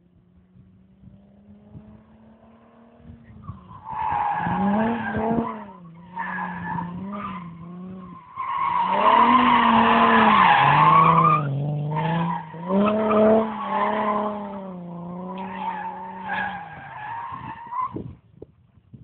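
Alfa Romeo 75 drifting: the tyres squeal in long stretches while the engine revs rise and fall. A quieter steady engine note comes first, and the squeal is loudest about halfway through.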